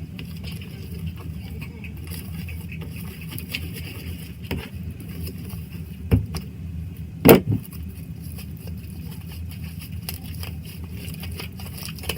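Hands kneading and stretching a sticky homemade slime, with a few short squelching sounds and one louder one about seven seconds in, over a steady low hum.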